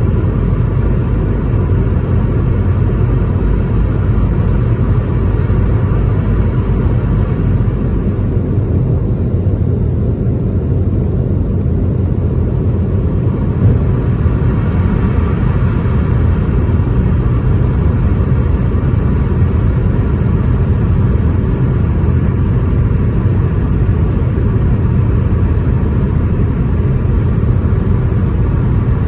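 Airliner cabin noise in flight: a steady low rumble of engines and airflow with a faint whine above it, unchanging throughout.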